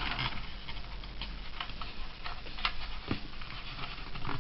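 Small, irregular clicks and ticks of hard plastic from a 1960s Century 21 toy Moonship as a stuck wheel is pried out of its wheel brace. One click about three seconds in is louder than the rest.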